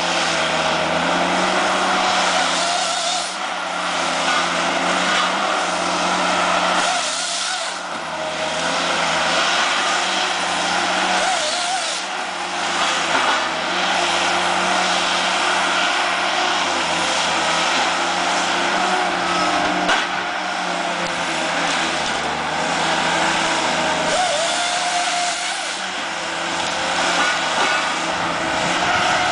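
Tigercat harvester's diesel engine running steadily under load, with its hydraulics working a Waratah 624 Super harvesting head as it grips, feeds and cuts pine stems.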